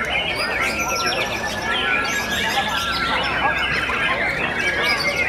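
Several white-rumped shamas singing at once, a dense overlapping mix of clear whistles, rapid trills and chirps.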